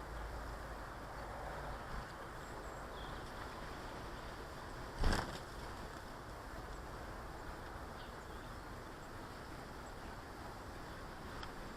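Garden ambience: a steady background hiss with a few faint, brief chirps from small garden birds, and one sharp knock about five seconds in.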